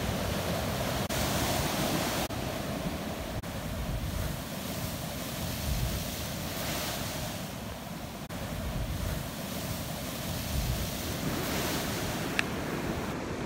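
Ocean surf breaking and surging over a rocky shore: a steady, rushing wash of white water.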